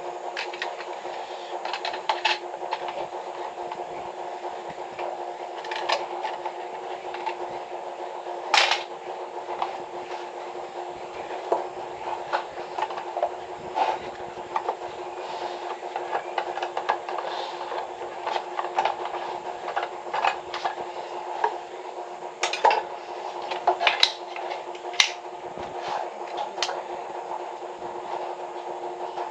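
Scattered clinks and knocks of metal tools and pipe fittings being handled during a water-pipe repair, over a steady hum.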